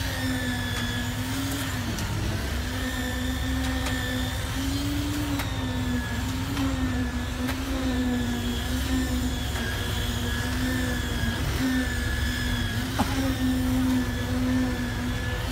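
Concrete boom pump truck's engine running steadily at high speed while pumping concrete, its pitch dipping briefly about two seconds in. A single sharp click near the end.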